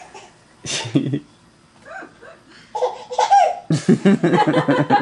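A baby laughing in short bursts, breaking into a longer run of rapid laughter from about three seconds in.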